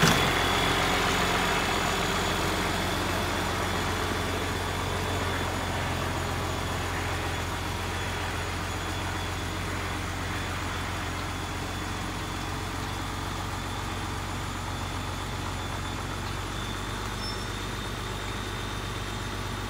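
Farmall 1066's turbocharged six-cylinder diesel engine running steadily while pulling a rotary mower through grass, slowly growing fainter as the tractor drives away.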